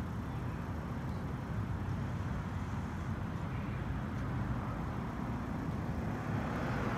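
Steady low rumbling outdoor noise with no distinct events.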